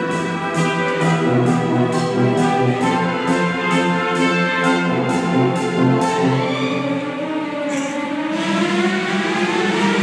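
Brass quintet and full orchestra playing film music live: a steady beat of sharp strokes about two a second over a moving bass line, which drops out about seven seconds in, giving way to held chords with a slow rising glide in pitch.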